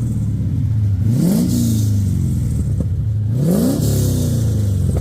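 Aluminium 5.7 L LS1 V8 in a BMW E36 idling through headers and a custom exhaust, blipped twice: the revs rise and fall about a second in and again near three and a half seconds. This is a running check after the loose V-band exhaust clamp was tightened, and the owner doesn't think there's any more exhaust leak.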